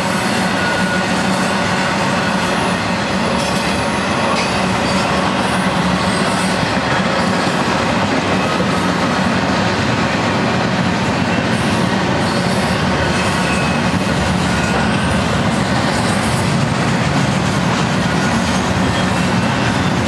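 BNSF intermodal freight train's cars rolling past: a steady, loud rumble and rattle of steel wheels on rail as the trailer-carrying cars and then double-stack container cars go by.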